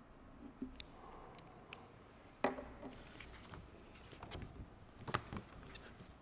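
Paper and a document folder handled on a wooden lectern: scattered light clicks and knocks, the loudest about two and a half seconds in and another about five seconds in.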